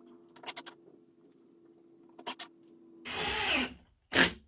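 Cordless drill/driver driving pan-head screws into a coroplast panel: a few clicks, then the driver runs for just under a second about three seconds in and its motor winds down in pitch. A sharp knock comes near the end.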